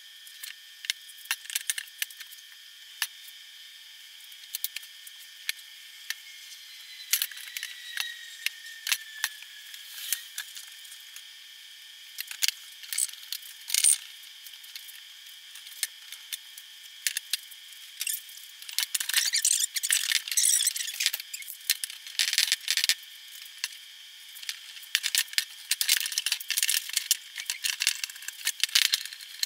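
Scattered clicks, knocks and squeaks of pine boards being handled and glued edge to edge into a tabletop. The sound is thin and high-pitched with no low end, and the clatter is busiest in the second half.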